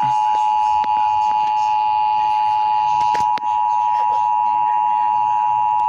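Emergency Alert System two-tone attention signal: a loud, steady, harsh tone of two notes sounding together, with a few faint sharp clicks, about a second in and just after three seconds in.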